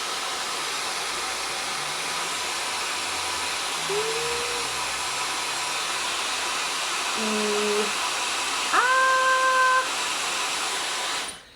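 Dyson Supersonic hair dryer blowing on its highest fan speed: a steady, even rush of air that switches off near the end. A few short pitched tones sound over it, the loudest about nine seconds in.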